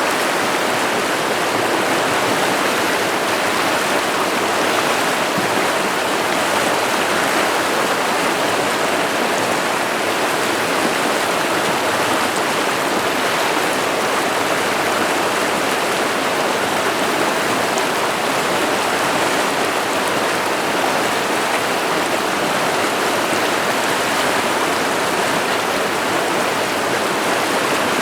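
A river running over rocks: a steady, loud rush of water.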